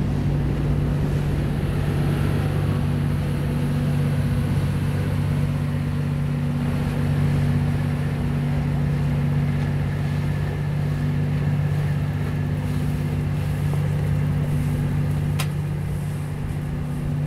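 Steady, low engine hum holding an even pitch throughout, with a single sharp click about fifteen seconds in.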